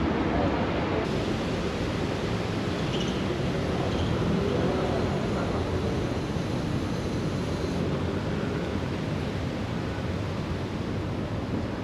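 Steady city street ambience: a continuous wash of road traffic noise.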